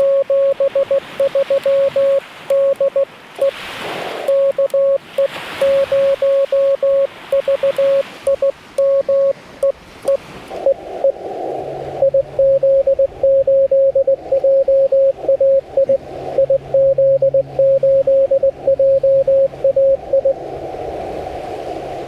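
Morse code beeps from a Yaesu FT-891 transceiver, a single steady tone keyed rapidly on and off. For the first ten seconds or so it is clean, like the operator's own keying sidetone. From about ten seconds in, the beeping comes through a hiss of band noise as a received CW signal, and the hiss carries on alone near the end.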